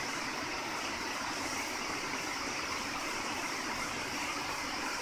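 Long-arm industrial sewing machine running steadily as fabric is fed under the needle.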